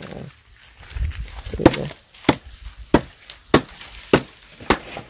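Chopper blade chopping firewood: six sharp, evenly paced chops about every 0.6 seconds, starting about a second and a half in.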